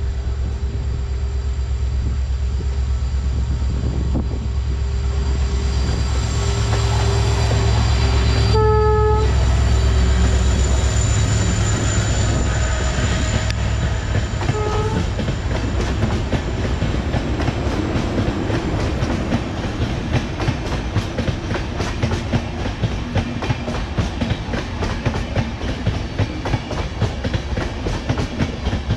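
Diesel locomotive approaching and passing with a heavy engine rumble that peaks as it goes by. Its horn sounds once about nine seconds in, with a short second toot near fifteen seconds. Passenger coaches then roll past, their wheels clicking steadily over the rail joints.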